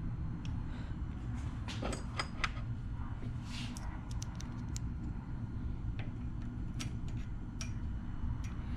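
Scattered light metallic clicks and clinks as small lash caps are set back onto the valve stems of a Predator 212 Hemi engine's cylinder head, over a low steady hum.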